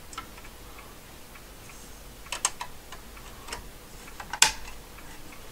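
Small clicks and knocks of a plastic card reader being pushed and fitted into its housing: a few light clicks about two and a half seconds in, then one sharper click near the end.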